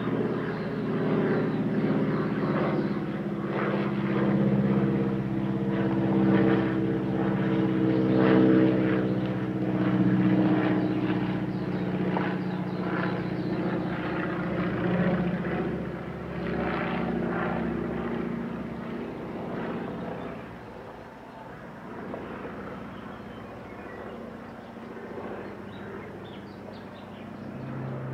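Piston engine and propeller of a Boeing Stearman biplane flying overhead: a steady drone, loudest about a third of the way through, then fading away over the last third as the plane moves off.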